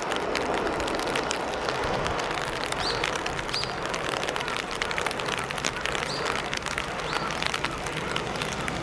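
EF210 electric locomotive hauling a container freight train approaching, a steady rumble of wheels on rail with many small clicks and crackles, growing slightly louder near the end.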